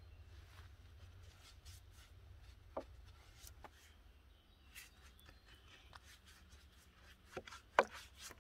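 Quiet brushing and rubbing of paint onto a wooden garden table with a brush and gloved hand, with a few light knocks and clicks from the brush, can and wood, the sharpest one near the end.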